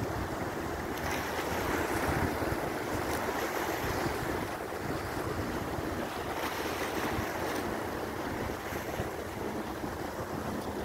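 Sea waves washing against a rock breakwater, with wind buffeting the microphone: a steady, even rushing noise that swells briefly a couple of times.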